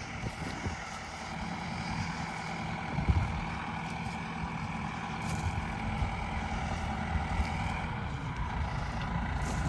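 Tractor and leek harvesting machine running steadily, with a single knock about three seconds in.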